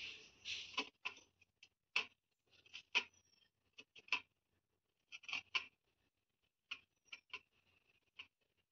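Soft fleece cloth rubbing a small idol dry on a brass plate: faint, irregular scuffs and light clicks, growing sparser after about six seconds.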